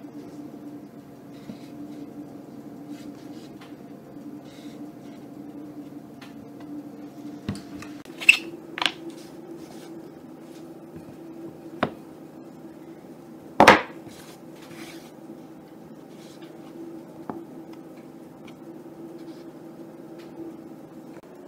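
Scattered sharp knocks and taps of plastic cutters and hands on a wooden board while cutting fondant: two close together about eight seconds in, another near twelve seconds and the loudest near fourteen seconds. A steady low hum runs underneath.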